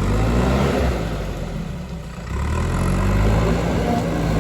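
JCB 3DX backhoe loader's diesel engine running, easing off briefly and then picking up again about two seconds in.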